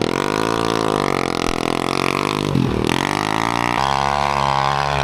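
Gas dirt bike engine with no exhaust fitted, running loud and revving up and down, its pitch rising and falling several times.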